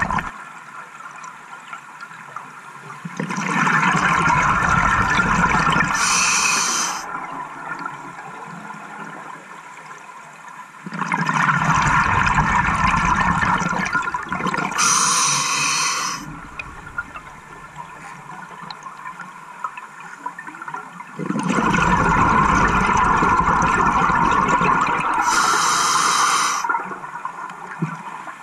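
A scuba diver breathing through a regulator underwater: three breaths about ten seconds apart, each a few seconds of bubbling and gurgling ending in a brief high hiss, with quieter water noise between them.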